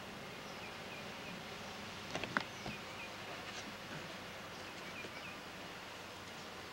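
Faint outdoor background with a steady hiss, a few soft clicks about two seconds in, and faint, short, high chirps repeated in small groups.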